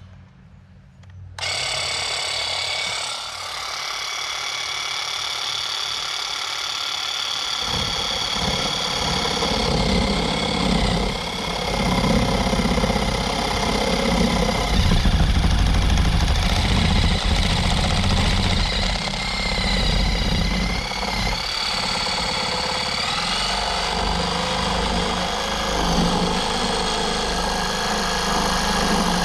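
Handheld power cutting tool switching on about a second and a half in with a steady whine, then from about seven seconds in biting into material with a heavy, buzzing vibration, cutting the enlarged speaker hole in the boat's panel.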